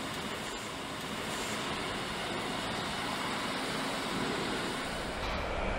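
Steady hum and noise of a truck assembly hall, with a few faint clicks and knocks.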